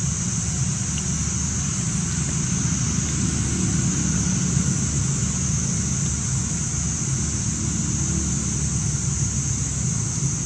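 Steady outdoor background noise: a constant high-pitched drone over a low rumble, with no distinct event standing out.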